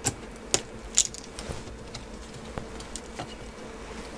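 Light clicks and taps from small tools and screws being handled on a laptop during disassembly. Three sharper clicks come in the first second or so, then a few fainter ones, over a faint steady hum.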